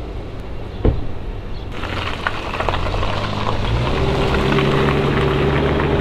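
A car door shuts with a thud about a second in, then a Hyundai crossover pulls away and drives past, its engine humming under the hiss of tyres on a wet road.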